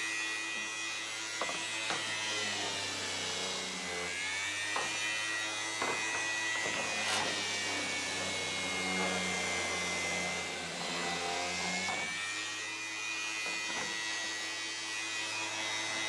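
Ryobi random orbit sander running on a wooden table top, doing a final pass with 220-grit paper. Its steady motor whine wavers slightly in pitch as it is pushed across the wood, with a few light knocks.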